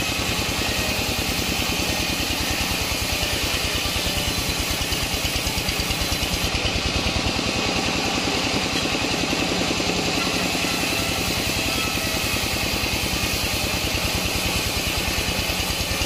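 Engine-driven sawmill circular saw running steadily with a fast, even pulse while the blade rips a waru log lengthwise.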